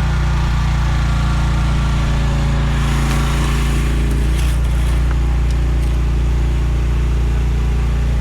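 Small engine of a Chinese mini excavator running steadily at a constant speed, with an even low drone.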